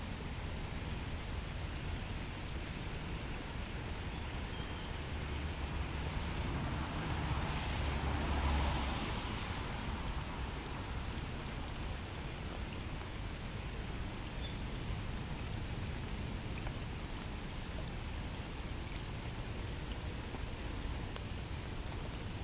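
Steady hiss of heavy rain falling. Around the middle a rushing swell with a low rumble builds and fades over a few seconds.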